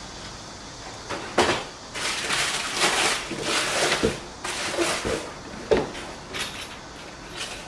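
Unpacking on a countertop: plastic wrapping rustling and a cardboard box and padded bag being handled, in a string of scrapes and rustles with a few sharp knocks, the loudest about a second and a half in and again near six seconds.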